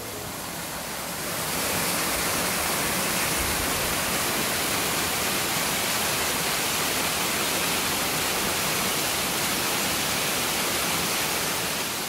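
Steady rushing of a waterfall, an even roar of falling water without rhythm or pitch. It swells about a second and a half in and eases slightly near the end.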